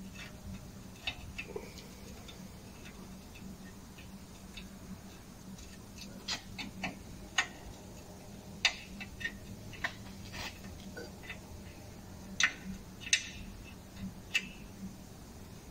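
Hand tools clicking and tapping on a car's front brake caliper and hub while the caliper is being removed: scattered sharp metallic taps, sharper and more frequent in the second half, over a steady low hum.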